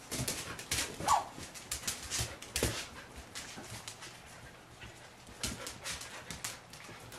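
Samoyed puppies at play: claws clicking and scrabbling on a hardwood floor, with a short, high, falling yelp from a puppy about a second in and a thump a moment later.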